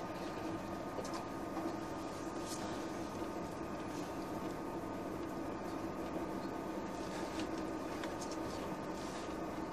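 Steady running noise inside a TGV Atlantique passenger car at speed: wheels on the rails with a constant hum and a thin high steady tone, the electrical sound of the AC traction equipment typical of the TGV Atlantique, and a few faint ticks.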